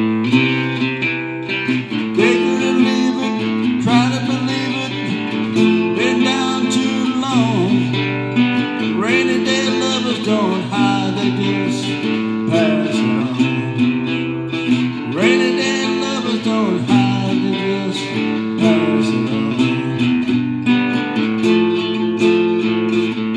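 Acoustic guitar playing chords continuously as the instrumental close of a song, with a man's wordless vocal sliding up and down in pitch at several points over the guitar.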